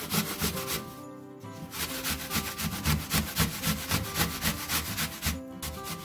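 Peeled apple being grated on a stainless steel box grater standing on a wooden cutting board: quick rasping strokes, about four a second, with a short pause about a second in.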